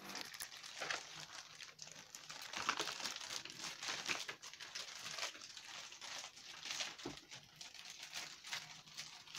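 Irregular crinkling and clicking of plastic toy parts and packaging being handled as a Hot Wheels garage playset is put together.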